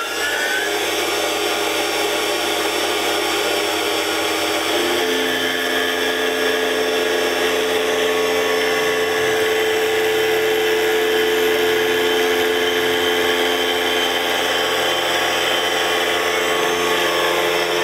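Tormach PCNC 1100 CNC mill spindle finishing its spin-up in the first second, then running steadily while the cutter mills the ring spanner. It is a steady whine, with further tones joining about five seconds in as the cut goes on.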